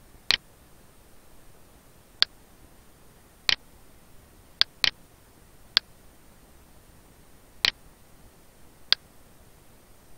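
Computer mouse button clicking, about eight sharp separate clicks at irregular intervals, two of them close together near the middle, over faint steady hiss.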